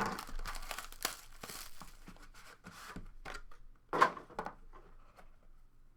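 Packaging of a trading-card box being torn and crinkled open, a dense crackling rustle that gives way to scattered handling ticks, with one louder rustle about four seconds in.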